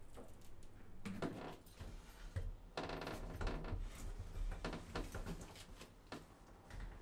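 A wooden door's lever latch clicking and the door opening, then an inner sliding door being pulled open along its track, with scattered clicks and knocks.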